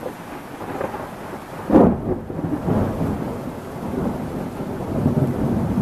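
Thunder from an approaching thunderstorm: a low rumble builds, a sharp loud clap breaks just under two seconds in, then long rolling rumbles follow.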